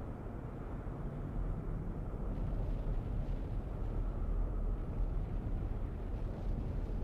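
Steady low rumbling ambience: an even, dull noise with no clear tone, heaviest in the deep bass, used as the background sound effect under a desolate scene.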